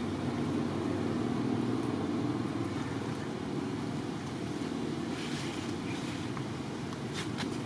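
Steady low rumble of background noise, with a few short clicks near the end.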